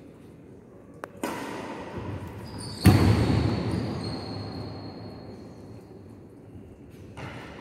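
Badminton rally in a large hall: racket strikes on the shuttlecock and footfalls on the court. About three seconds in comes a loud, sudden thud that echoes around the hall and fades slowly.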